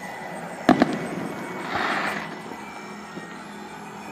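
Aerial fireworks shells bursting: a sharp double bang about a second in, followed a second later by a short hissing noise.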